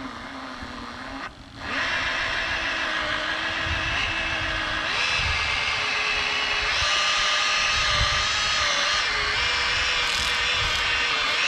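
DeWalt 20V cordless brushless polisher running, buffing compound into a cloudy plastic headlight lens. It runs quieter at first, then speeds up about a second and a half in and holds a steady whine that wavers slightly in pitch.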